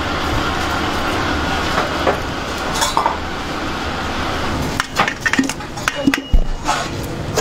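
Stainless steel mixing bowls clinking and knocking as they are handled, a quick cluster of sharp knocks about five seconds in, over a steady background noise.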